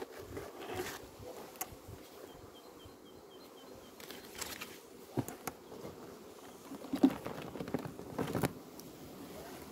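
Fabric rustling and soft knocks as cloth covers and a woven sack are pulled off the top of a wooden beehive, in short handling noises with the loudest about two-thirds of the way through.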